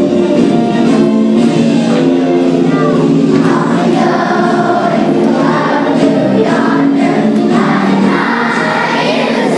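Elementary-school children's choir singing together, a steady song sung by many young voices.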